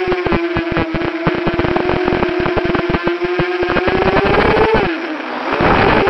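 FPV quadcopter's brushless motors and propellers whining at a steady pitch, with a dense crackle over it. Near the end the pitch swells, drops away briefly as the throttle comes off, then comes back louder as the throttle is punched again.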